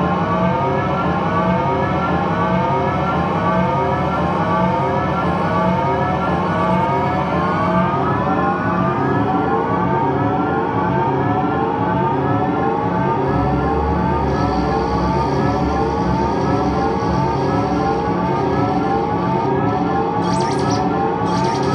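Live power electronics noise from an electronic setup: a loud, siren-like rising sweep repeating over and over above a pulsing, chopped low drone. A deeper low rumble joins a little past halfway.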